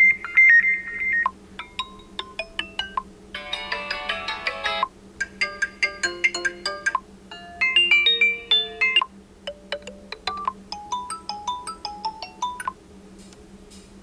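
Xiaomi Redmi 10C's built-in ringtones playing as short previews, one after another: about six different short melodies, each cut off abruptly after a second or two as the next one is selected, with a quieter gap near the end.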